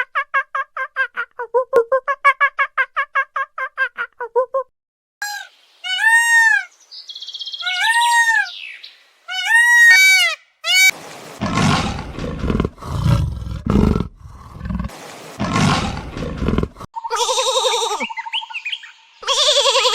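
A string of different animal calls: a quavering, bleat-like call for the first four seconds or so, then a run of short arched high calls, then several deep rough roars of a big cat such as a tiger, and another quavering bleat-like call near the end.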